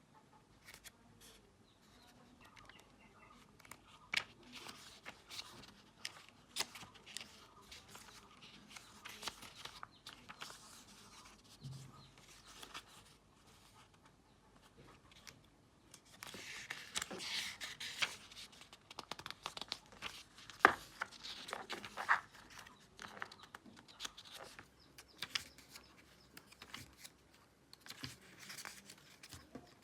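Packaging being handled during an unboxing: plastic and cardboard crinkling and rustling, with scattered small clicks and taps. The handling is busiest about halfway through.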